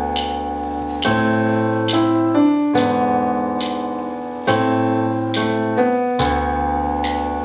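Piano introduction to a song: full sustained chords with deep bass notes, a new chord struck about every second and a half to two seconds.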